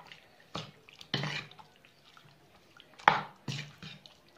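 Spoon stirring raw chicken through a thick yogurt marinade in a bowl: a few irregular wet squelches and scrapes, the loudest a little after three seconds in.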